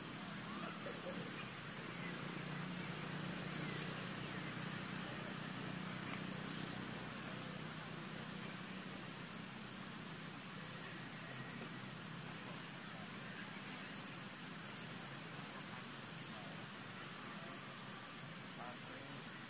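Insects droning at one steady high pitch over a faint outdoor hiss.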